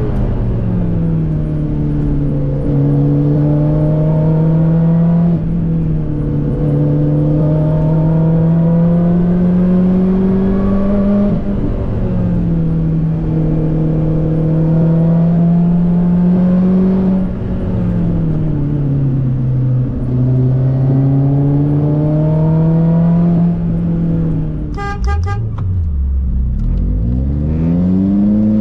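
Lotus Elise engine heard from inside the cabin, pulling up through the revs in repeated runs, the pitch dropping sharply at each upshift. Near the end the revs fall away, a brief pulsing toot sounds, and the engine blips back up on downshifts.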